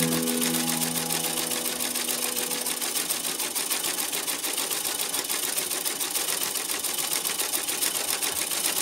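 Vintage Singer sewing machine, German-built around 1924 and freshly cleaned and oiled, stitching through fabric at a steady speed with a rapid, even ticking. Background music fades out in the first couple of seconds.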